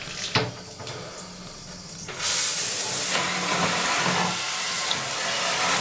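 Handheld shower spray hitting the plastic casing of a Philips cassette recorder, a loud steady hiss that comes in abruptly about two seconds in. Before it there is a quieter stretch with a sharp knock near the start.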